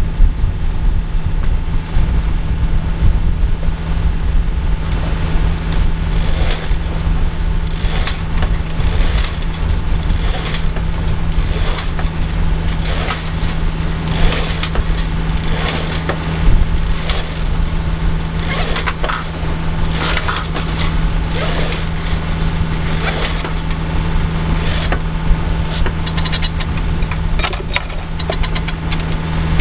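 Sailboat's inboard engine running at a steady hum while under way, with irregular short rushes of noise over it.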